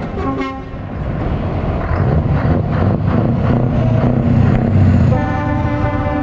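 Scania R560 tractor unit's V8 diesel engine running under load, building up as the truck pulls out and passes close by. From about five seconds in, a truck air horn blows and is held.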